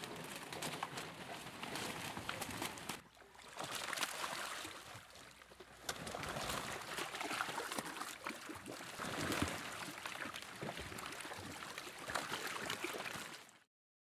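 A dense flock of American white pelicans jostling in shallow water over fish scraps: steady splashing and sloshing with many small knocks and clicks. It eases off for a few seconds about three seconds in, then cuts off abruptly near the end.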